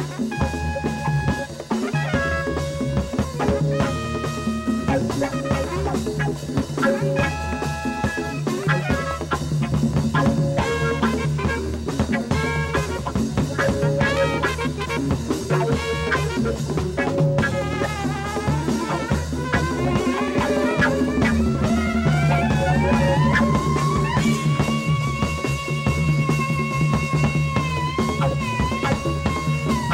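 Electric jazz-rock band playing live, with a drum kit, electric bass and electric guitars under short repeated stabbed notes in the first half. Over the second half a soprano saxophone line slides slowly upward and then holds one long high note, which wavers and dips near the end.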